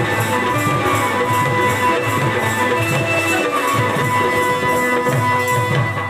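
Instrumental folk dance music: a steady drum beat under long held melody notes.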